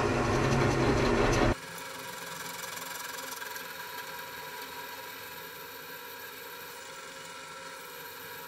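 Drill press motor running steadily. A louder, heavier sound cuts off abruptly about one and a half seconds in, leaving a quieter, even hum with a faint whine.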